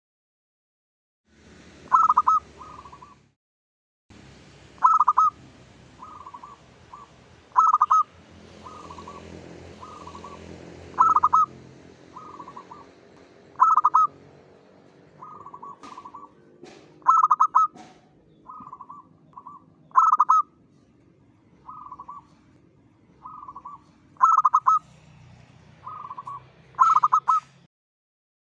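Zebra dove (perkutut) singing its cooing song: short clipped coos in phrases, each opening with a loud note and trailing into softer coos, repeated about nine times at roughly three-second intervals.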